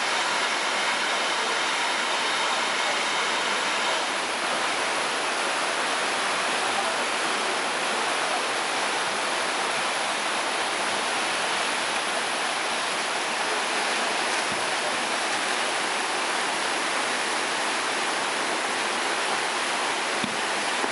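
River whitewater rapids rushing over and around boulders: a steady, unbroken water noise.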